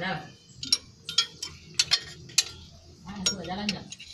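Irregular sharp metallic clicks and clinks of a hand wrench working on the fuel-line fittings of a Nissan Diesel TZA520 V8 diesel engine.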